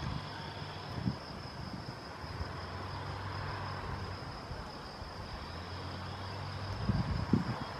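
Outdoor background: a steady high-pitched insect-like drone over a low steady hum, with low gusts of wind buffeting the microphone near the end.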